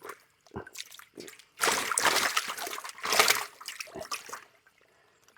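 Fish thrashing in a basin of water: several irregular bursts of splashing and sloshing that die away near the end.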